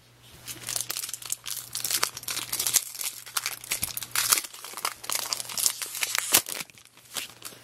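Foil wrapper of a 2002 Bowman baseball card pack crinkling and crackling in the hands as it is handled and torn open, in quick irregular crackles that die down near the end.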